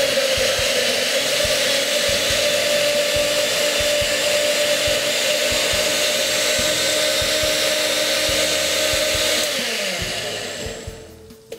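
Countertop blender motor running at steady speed, puréeing tomatoes, onion and garlic into a smooth liquid. About nine and a half seconds in it is switched off and winds down, its pitch falling as it fades.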